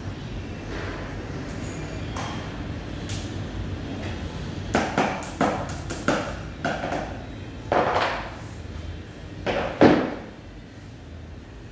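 Knocks and taps from the particleboard panels and fittings of an IKEA Billy bookcase being handled and fitted together. A quick run of sharp taps comes about five seconds in, then a few heavier single knocks, the loudest near the end, over a steady low hum.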